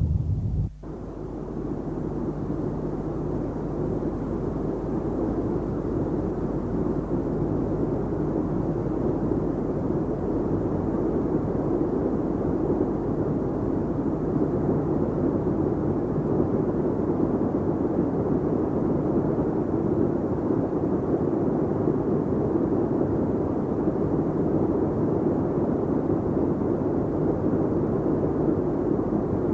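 Steady droning rumble of bomber piston engines in flight. An abrupt cut about a second in, after which the rumble goes on noisier and fuller to the end.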